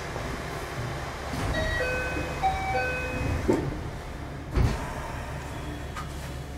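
Doors closing on a stopped 521-series electric train: a short electronic chime of several stepped notes, then two knocks, the second and louder one as the sliding doors shut, over the train's steady low hum.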